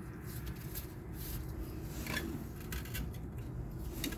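Small metal clicks and scraping as a snap ring is worked into its groove on a CV axle, over a steady low hum.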